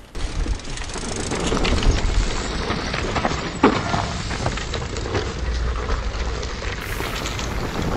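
Mountain bike riding down a dry dirt trail: tyres rolling and scrabbling over loose dirt and gravel with the bike rattling and clicking, and one sharp knock a little before four seconds.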